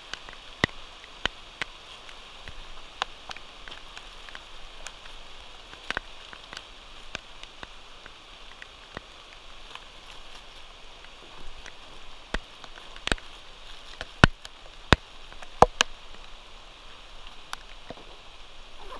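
Steady rain hissing, with irregular sharp taps and clicks close by, several louder ones near the end.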